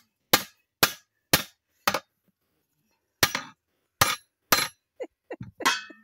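Hammer blows on the steel split ring of a 16-inch split rim, driving the ring into place: four sharp metallic strikes about every half-second, a short pause, then three more, followed by lighter knocks and clinks near the end.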